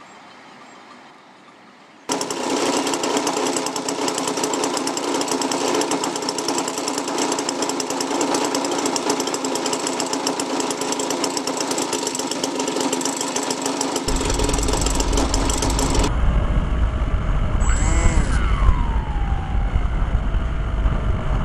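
A steady, fast-pulsing mechanical buzz starts suddenly about two seconds in and holds an unchanging pitch. About two-thirds of the way through it gives way to wind rumble and the whine of an electric RC plane's motor heard through the plane's onboard camera. The whine falls and then rises in pitch as the throttle changes.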